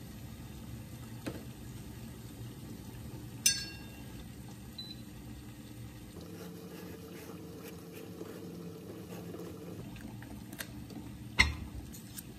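Water boiling steadily in a small saucepan, with a sharp ringing clink of the metal slotted spoon against the pot about three and a half seconds in and another sharp knock near the end.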